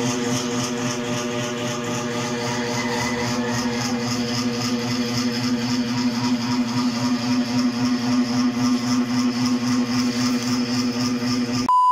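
A motor running steadily, an even engine-like hum with a faint regular pulsing that does not change in pitch. Near the end it breaks off into a short, steady, high beep.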